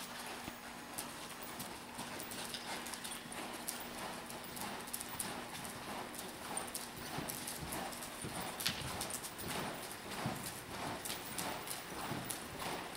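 Horse's hoofbeats on soft dirt arena footing at a lope, a steady rhythmic run of muffled thuds.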